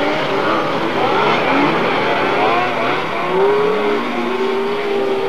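Racing snowmobiles' two-stroke engines revving at speed, several engines overlapping, their pitch rising and falling as the throttle changes. One engine holds a steady high note near the end.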